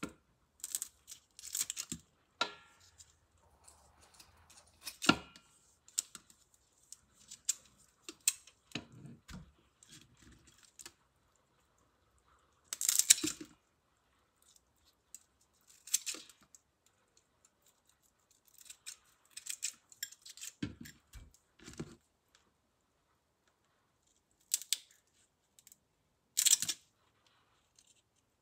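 Kitchen scissors snipping the antennae off raw prawns, with the prawns handled over a stainless steel bowl: short, sharp snips at irregular intervals, with pauses of a second or two between them.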